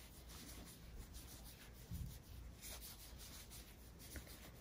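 Faint rubbing and rustling of yarn on a crochet hook as stitches are worked, barely above room tone.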